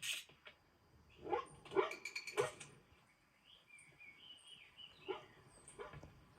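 Bull terrier barking: a quick run of three barks, then a high wavering whine, then another bark near the end.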